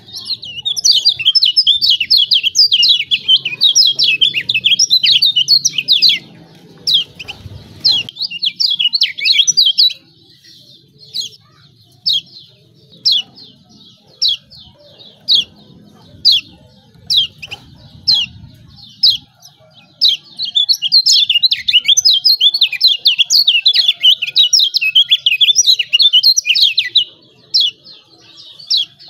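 Kecial kuning white-eyes giving fast, excited high-pitched 'ciak ciak' chattering calls: two long runs of rapid notes, separated by about ten seconds of single calls spaced roughly a second apart. This is the agitated 'ciak' call used as a lure to provoke a silent bird into calling.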